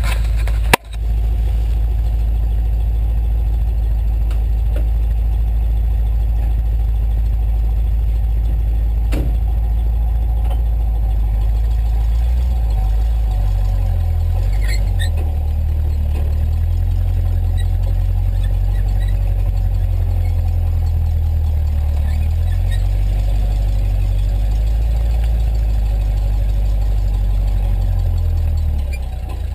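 A heavy vehicle engine running loud and steady, with a sharp click and a brief dip about a second in; from about twelve seconds in the engine note shifts up and down as it works under changing load.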